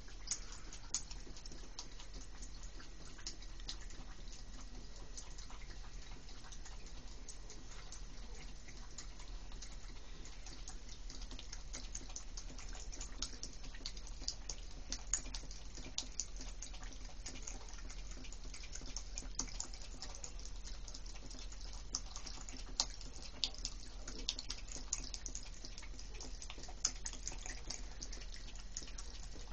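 Water dripping from a shower head onto a cat's wet fur and the shower floor: an irregular patter of small ticks, the louder drops coming more often in the second half.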